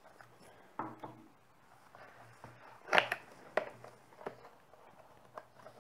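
A cardboard retail box being handled and opened by hand: a few separate taps and scrapes of cardboard, the loudest about three seconds in.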